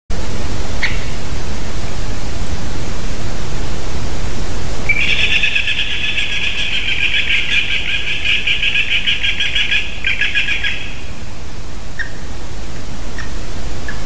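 A bird calls in one long, fast series of high notes for about six seconds, starting about five seconds in, with a few short single call notes before and after. Steady hiss runs underneath.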